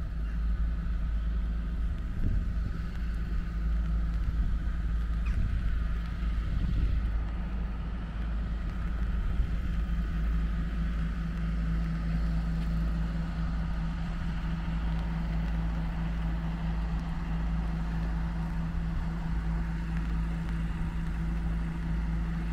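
Wind rumbling on the microphone during a walk in wet, windy weather, with a faint hiss. A steady low hum runs underneath, grows stronger about halfway through and cuts off suddenly at the end.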